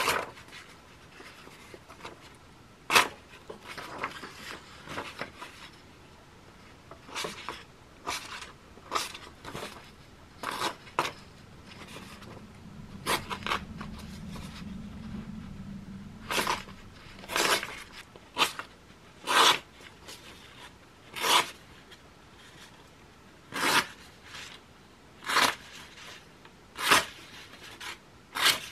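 Small folding knife blade of a camping utensil set slicing through a sheet of paper in a series of short, sharp cuts, irregularly spaced and coming more often in the second half.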